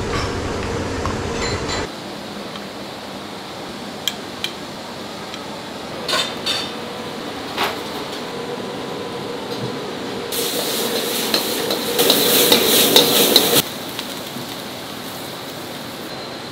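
Commercial kitchen work: scattered clinks and knocks of utensils against pots and pans, then a few seconds of louder sizzling and scraping, as of food being stir-fried in a pan.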